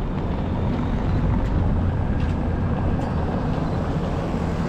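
Steady low outdoor rumble of wind on the microphone, with faint traffic noise under it.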